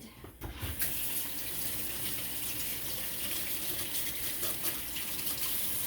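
Kitchen tap running as hands are rinsed under it, the steady rush of water starting about a second in.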